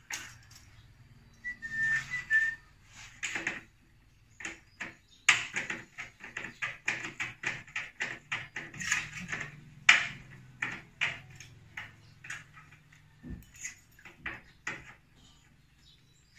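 Rapid, uneven clicks and taps of hand work on a glass door's metal frame during fitting, busiest in the second half. A short high whistle sounds about two seconds in.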